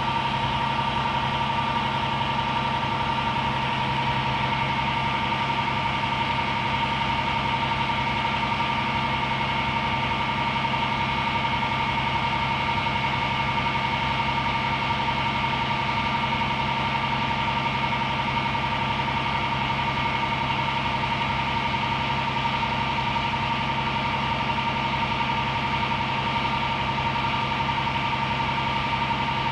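Aerial ladder fire truck's diesel engine running steadily, powering the ladder as it is raised and extended, with a steady high-pitched whine over the engine.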